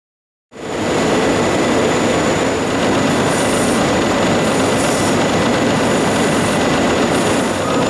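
Jones and Shipman 1400LA surface grinder running: a steady mechanical noise with a thin high whine, starting abruptly about half a second in, with a brief hiss recurring about once a second in the second half.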